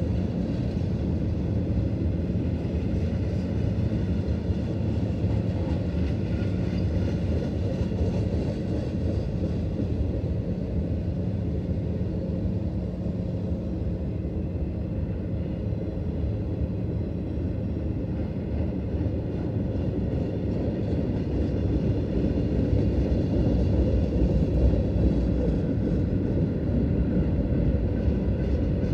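Freight train cars, covered hoppers and tank cars, rolling past on the rails with a steady low rumble that does not let up.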